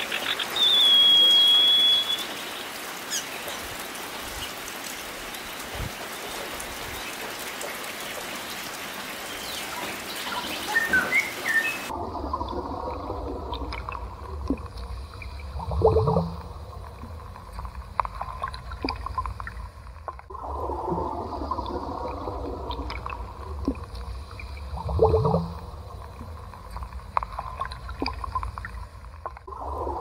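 A bird gives a short whistled call near the start over a steady outdoor hiss. About twelve seconds in, the sound changes to underwater ambience: a low rumble with gurgling bubbles that swells twice.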